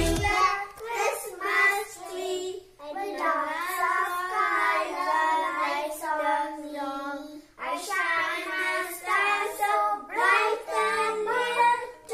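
A small group of young children singing a song together, unaccompanied, pausing briefly twice between phrases.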